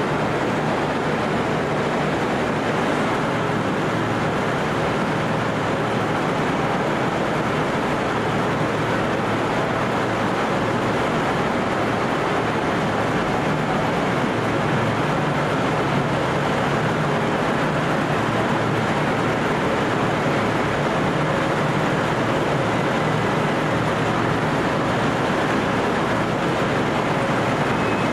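Steady, even drone of an idling diesel locomotive, with no change in pitch or level.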